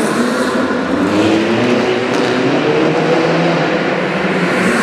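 Rally hatchback's engine revving up and down several times as the car is driven hard around a tight indoor barrier course, the sound echoing in a large hall.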